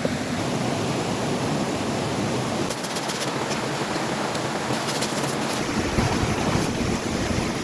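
Strong wind rushing steadily, with short bursts of crackling rustle about three and five seconds in.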